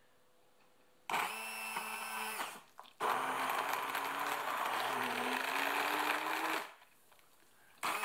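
Electric blender pureeing thawed cherries: a short burst about a second in, then after a brief pause a longer run of about three and a half seconds as the blade churns the berries, then it stops.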